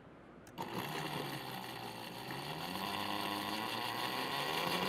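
KitchenAid blender switched on about half a second in, its motor running and climbing steadily in pitch and loudness as the speed dial is turned up from zero. It is grinding whole toasted spices with lemon juice, vinegar and garlic into a puree.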